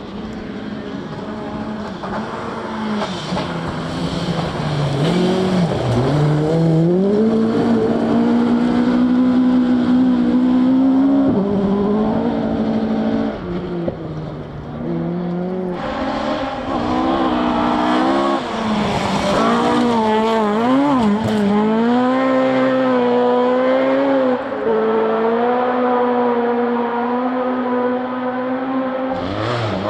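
Rally car engines at full throttle, revving hard, the pitch climbing and dropping again and again through gear changes and lifts, growing louder over the first several seconds as a car approaches. About halfway through the sound changes abruptly to another stretch of hard-revving engine.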